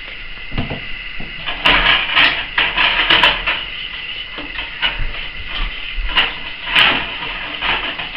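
A utensil stirring sauce in a stainless steel saucepan, scraping and clinking against the metal pan in irregular bursts, loudest about two to three seconds in and again near seven seconds. A faint steady high tone runs underneath.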